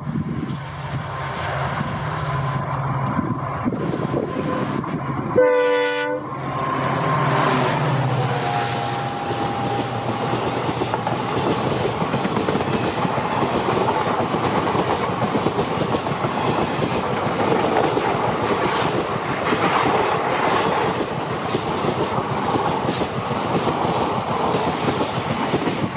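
A WDP4D diesel-electric locomotive approaches with its engine running and gives one short horn blast about six seconds in. Its passenger coaches then rush past close by, wheels running over the rails in a steady loud clatter.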